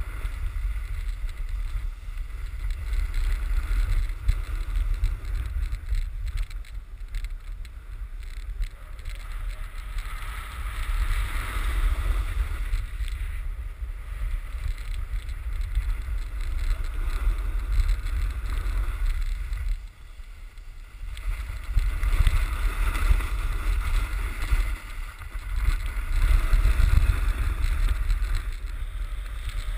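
Snowboard sliding and carving on packed snow, a hiss and scrape that swells and fades with the turns, under a heavy low rumble of wind buffeting the camera's microphone at riding speed. It goes briefly quieter about two-thirds of the way through.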